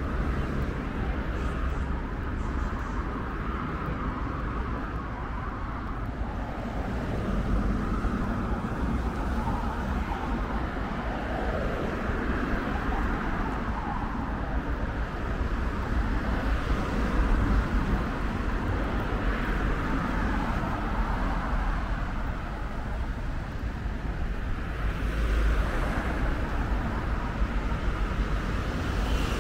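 Urban road traffic: a steady rumble of cars on the street, swelling several times as vehicles pass by.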